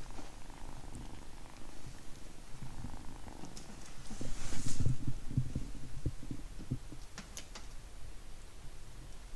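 Tabby kitten purring while being stroked, a low pulsing rumble, with a louder rustle of the hand rubbing close to the microphone about four to five seconds in.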